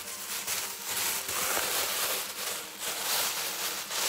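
Thin plastic produce bag crinkling and rustling as it is untied and pulled open by hand, a continuous crackle with many sharp little crackles.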